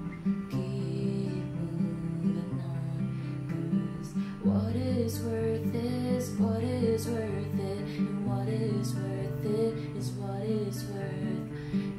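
Acoustic guitar strummed in a slow chord progression, with a girl's voice singing a melody over it from about four seconds in.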